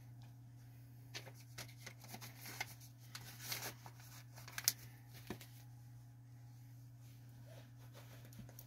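Faint rustling and small clicks of a paper note and a wallet being handled. The sounds come in short spurts through the first five seconds, with one sharper click just before the fifth second, over a steady low hum.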